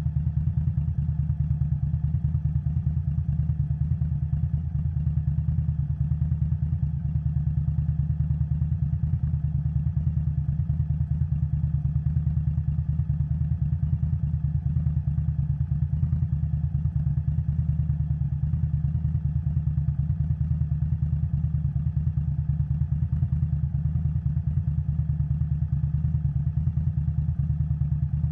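2021 Indian Scout Bobber Twenty's V-twin engine through a Vance & Hines Twin Slash exhaust, running under way at a steady engine speed with an even, unchanging note.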